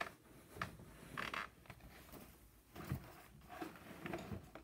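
Pillow and bedding being handled as a bed is made: a string of irregular soft rustles and swishes of fabric, with a few soft thumps as the pillow is patted into place.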